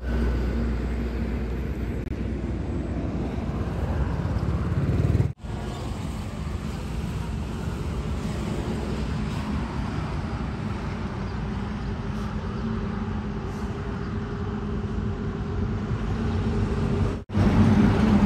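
Steady rumble of road traffic from vehicles passing on a nearby road. It cuts out briefly twice and grows louder with a low engine hum near the end.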